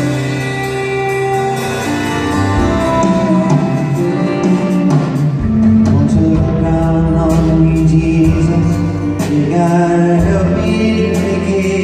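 Live soft-rock song: a man singing over acoustic guitar and piano, with a steady bass underneath, heard from the audience in a large hall.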